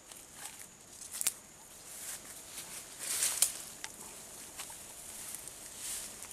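Leaves and grass stems rustling and crackling in short spells, with a sharp snap about a second in and the loudest rustle around three seconds in.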